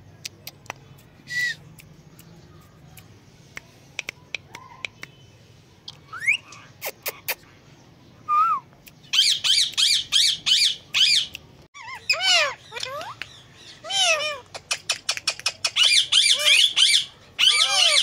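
Indian ringneck parakeets calling: a quiet stretch with a few clicks and a short rising whistle, then from about halfway rapid runs of short, high chirps and screeches that keep going to the end.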